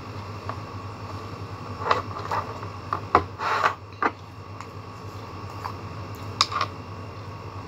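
Light clicks and knocks from a small plastic paint bottle and a paintbrush being handled, in a few short clusters, over a steady low hum.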